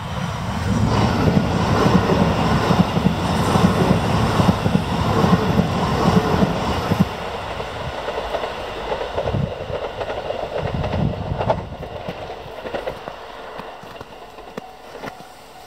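E3-series Yamagata Shinkansen train passing close and running off into the distance. Its rumble is loudest for the first several seconds, then fades, with sharp wheel clicks over the points as it goes away.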